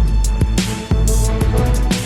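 Background music with a steady beat: heavy bass drum hits and cymbals.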